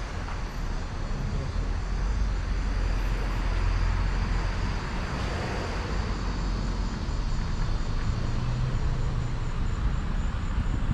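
Steady low rumble of vehicle noise outdoors.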